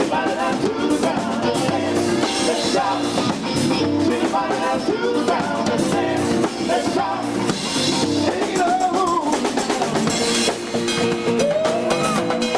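Live band music with a drum kit keeping a steady beat, bass and other instruments, and some singing.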